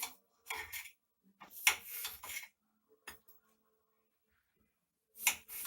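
Knife and dishes handled while cutting fruit: a few short scraping, rubbing sounds with gaps between, the longest about two seconds in.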